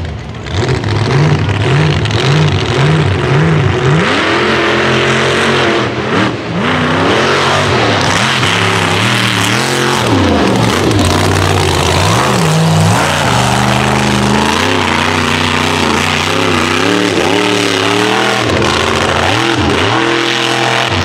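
Mega truck engine revving in quick throttle blips, about two a second, then running hard at full throttle with its pitch repeatedly rising and falling.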